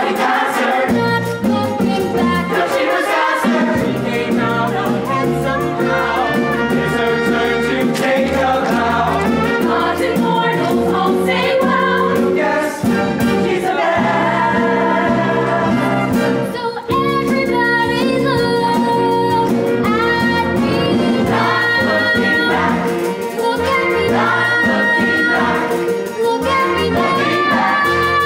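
Stage-musical ensemble number: a full cast singing together in chorus over instrumental accompaniment.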